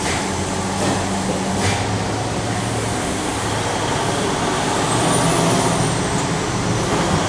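A vehicle engine running steadily, a low hum over background noise.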